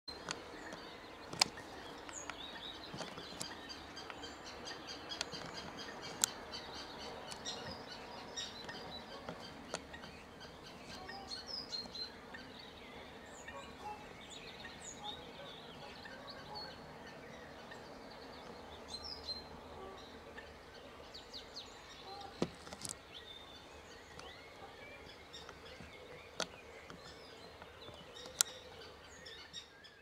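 Small birds chirping and singing throughout over a steady background of outdoor noise, with a few sharp clicks scattered through it.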